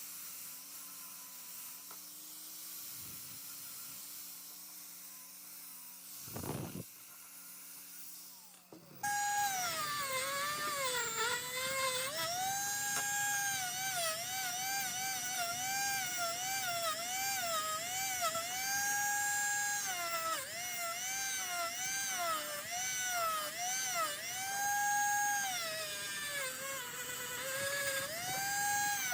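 Small high-speed rotary tool with an electric motor, starting up about nine seconds in. Its high whine repeatedly sags in pitch as it is pressed onto the work and climbs back as the load comes off. Before it starts there is only a low steady hum.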